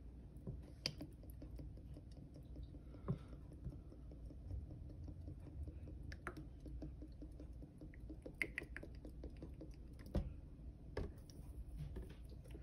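Olive oil poured from a glass bottle into small glass jars of dried herbs: faint pouring with scattered light clicks and taps of glass, over a low steady hum.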